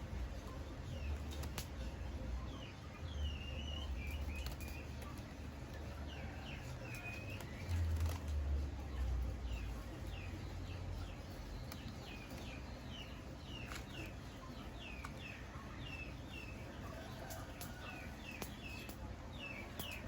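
Small birds chirping again and again, short quick notes in runs, over a low rumble that swells about eight seconds in.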